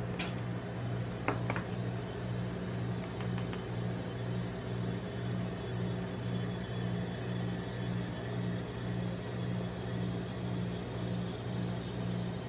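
Steady low hum of a rolled-ice-cream cold-plate machine's refrigeration unit, with a few light clicks in the first few seconds as a plastic spatula and crisps are handled at a paper cup.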